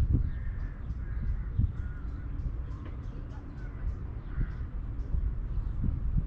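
A bird calling several times in short calls, over wind rumbling on the microphone.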